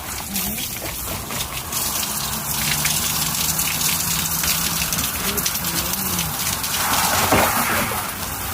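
Water running steadily from a shower head, a continuous rushing spray.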